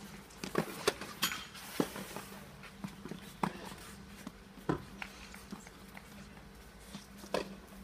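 Scattered sharp knocks of tennis balls bouncing and being struck with rackets, about seven in all at irregular spacing, the loudest near the middle, over a steady low hum.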